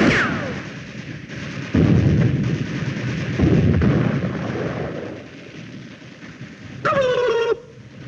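War-film battle sound effects: loud blasts and gunfire. About seven seconds in comes a short turkey-gobble call, made by a man imitating a turkey.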